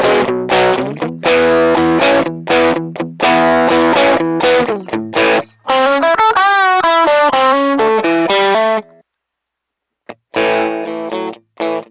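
Fender Stratocaster electric guitar through a Boss OD-1 overdrive pedal: overdriven chords, then a single-note lead phrase with vibrato about six seconds in. The playing stops for about a second near nine seconds, then chords start again.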